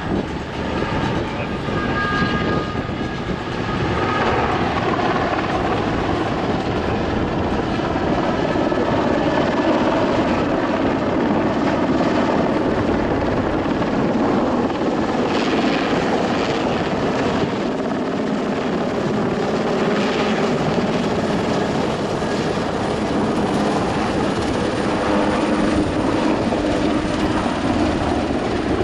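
AS 532 Super Puma helicopter flying a display: steady rotor and turbine noise that gets louder about four seconds in as it comes close.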